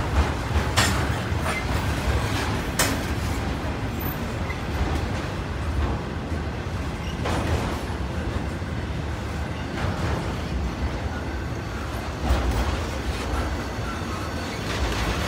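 BNSF intermodal freight train's trailer-carrying flatcars rolling past, with a steady rumble of steel wheels on rail. Sharp clicks and clanks break in every few seconds.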